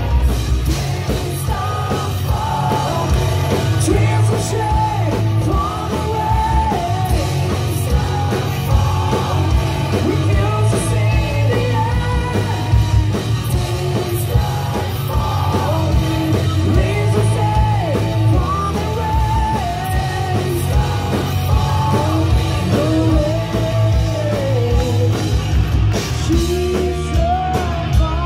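Sleaze/glam metal band playing live: distorted electric guitars, bass and drums with a singer's vocals over them, loud and without a break.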